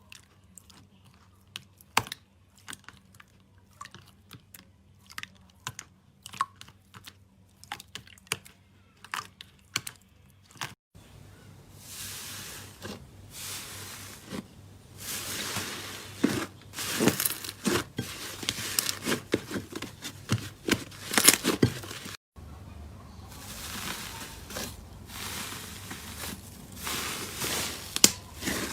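Crunchy slime being pressed and squished by hand, giving sharp crackles and pops. It starts as sparse single clicks, then after a sudden cut about eleven seconds in becomes dense crackling and crinkling with loud snaps, with another abrupt cut about twenty-two seconds in.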